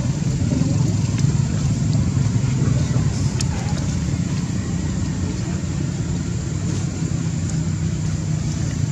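A steady low mechanical hum, like an engine idling, with a faint steady high whine above it.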